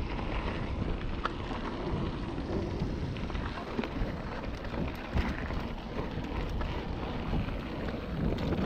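Mountain bike rolling down a loose, stony dirt trail: a steady crunch of tyres on gravel, scattered with small clicks and rattles, with wind buffeting the microphone.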